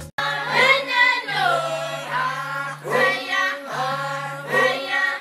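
A group of Maasai singing together in chorus, in phrases a second or two long over a steady low held note that drops out between phrases.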